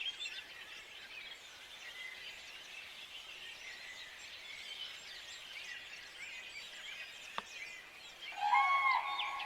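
Many small songbirds chirping and singing together in woodland, with one sharp click about two-thirds of the way through. Near the end, louder repeated calls with a rise-and-fall pitch start up, which fit common cranes calling.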